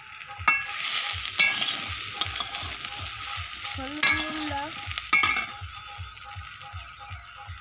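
A metal spatula stirring diced potatoes and soybean chunks in a metal kadai over a wood fire, the food sizzling as it fries. The spatula scrapes sharply against the pan about half a second in, again near a second and a half, and twice more around four and five seconds.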